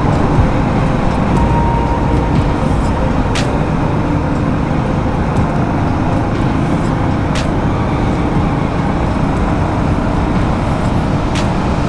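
Motorcycle engine running at a steady cruising speed, mixed with steady road and wind noise, with a few faint ticks.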